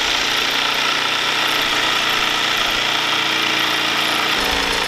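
Corded electric jigsaw running steadily as it saws through a wooden board, a buzzing motor with the blade rasping in the wood; a lower rumble comes in near the end.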